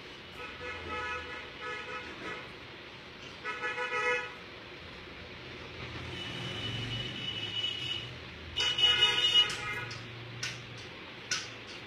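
Vehicle horns honking in groups of short toots: about half a second in, again around four seconds, and loudest around nine seconds. A low engine hum runs in between, and a few sharp clicks come near the end.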